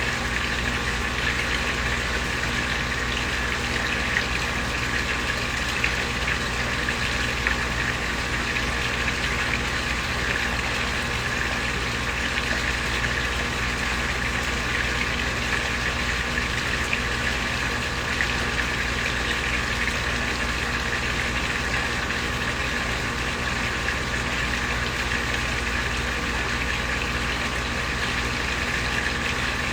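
Koi pond waterfall: water pouring and splashing steadily, with a low steady hum underneath.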